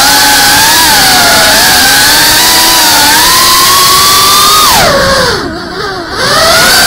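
FPV quadcopter's brushless motors and propellers whining loudly through the onboard camera, with a steady hiss. The pitch climbs slowly, then falls sharply about five seconds in as the throttle is cut for a dive. The sound dips for about a second before the motors spool back up.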